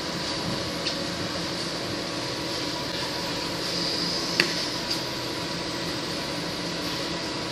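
MOPA fiber laser marking machine running while it marks an aluminium phone back: a steady hum and high hiss from the machine, with a few faint clicks, the sharpest about four and a half seconds in.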